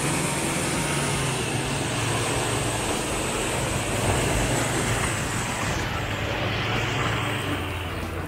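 Off-road pickup truck's engine running steadily, a low drone under a heavy wash of driving noise; the highest hiss drops away about six seconds in.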